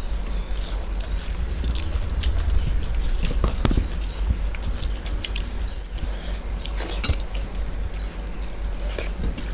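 Close-miked eating by hand: chewing and lip-smacking, with fingers mixing khichuri rice on steel plates, heard as many short irregular clicks and smacks over a steady low hum.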